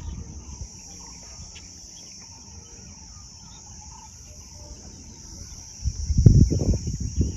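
Steady high-pitched insect drone, like cicadas or crickets. Loud, irregular low buffeting joins it about six seconds in.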